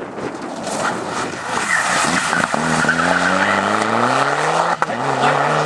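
Mitsubishi Lancer Evolution rally car sliding through a corner, its tyres scrabbling on loose gravel, then accelerating hard away. The engine note rises steadily and breaks off briefly for a gear change near the end.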